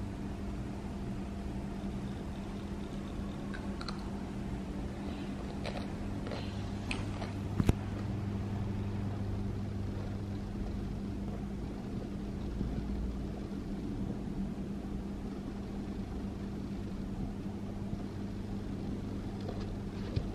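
A steady low hum throughout, with a few light clicks and one sharp tap about seven and a half seconds in.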